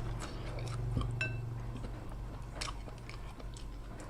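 Close-up chewing of a mouthful of rice noodles and fish cake, with soft wet mouth clicks. A short, light ringing clink about a second in, over a steady low hum.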